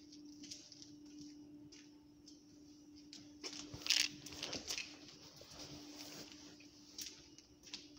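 Rustling and small clicks of a handheld phone being carried, with a louder brief scuff about four seconds in, over a steady low electrical-sounding hum.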